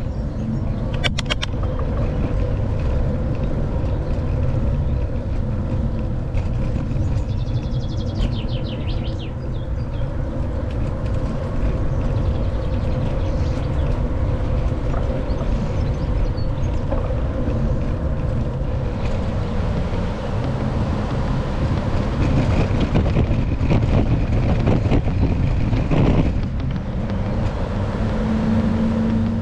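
Steady low rumble of wind on the microphone and rolling noise while riding an e-bike along a bike path, with a few faint high chirps about eight seconds in.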